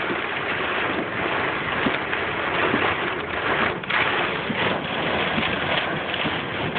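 Hail and heavy rain pelting a car's roof and windshield, heard from inside the moving car as a dense, steady clatter of small hits over the road noise.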